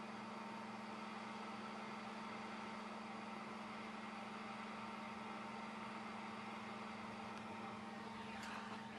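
Steady low hum and whir of running bench equipment, with a faint tick near the end.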